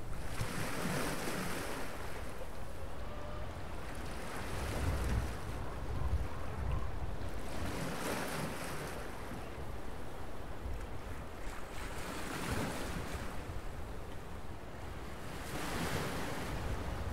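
Ocean surf washing onto a beach, swelling and fading every few seconds, with wind rumbling on the microphone.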